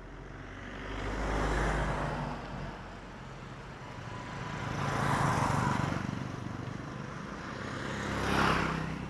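Road vehicles passing close by one after another: three swells of engine and tyre noise, each rising and fading away, a couple of seconds apart.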